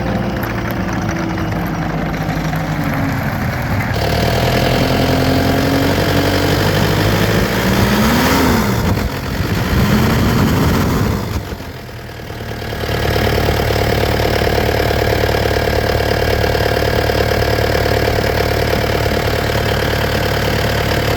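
Diesel engine of a Takeuchi TL8 tracked skid steer loader running. Its speed steps up about four seconds in and rises and falls in the middle. It drops briefly, then holds high and steady.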